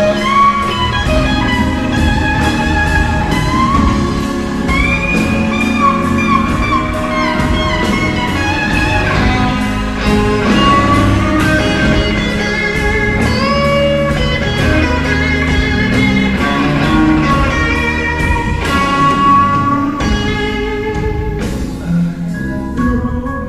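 Live electric blues guitar playing lead lines with string bends, over bass guitar and drums.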